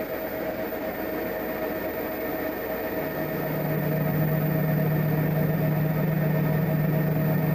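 Steady electrical hum with a higher whine from a power-amplifier test bench. About three seconds in, a strong low hum comes in and the sound grows louder as the amplifier is driven into its 4-ohm resistor load.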